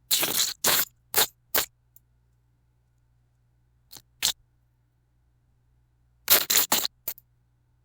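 Wet splat sound effects: short, sloppy, gooey impacts in quick runs. There are about four in the first two seconds, two near the middle, and a quick cluster of about five near the end.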